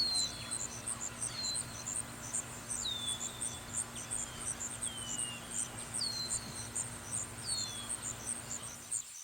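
Insects chirping in a fast, even pulse, about five a second, with a short falling whistle recurring every second or two.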